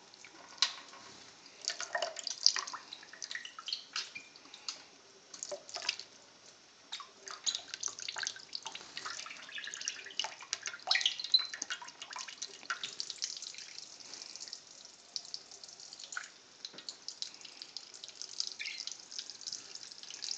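Thin stream of kitchen tap water falling onto cupped hands and a bathing budgie, with irregular splashes and drips into a stainless steel sink.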